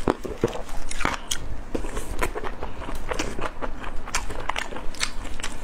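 Close-miked chewing and biting of spicy grilled skewers: a steady string of irregular mouth clicks and bites.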